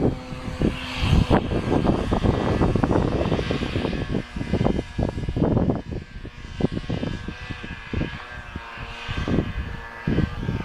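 Snowmobile engine running steadily as the machine rides away across the snow, with uneven low buffeting noise on the microphone over it.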